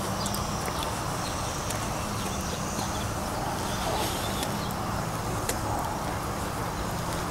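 Footsteps of someone walking on a paved stone path, over a steady low hum and outdoor background noise, with scattered faint clicks.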